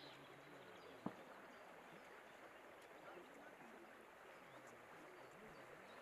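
Near silence: faint outdoor ambience, with a single soft click about a second in.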